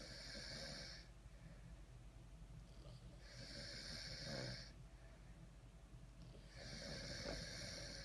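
Snoring during sleep: three slow snores about three seconds apart, each a drawn-out hissy breath with a low rumble under it.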